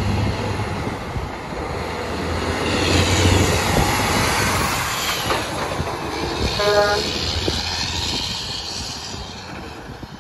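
Diesel semi truck pulling a loaded scrap-metal trailer passing close by, engine and tyres rising to a peak and then fading as it drives away. A short pitched toot sounds about two-thirds of the way through.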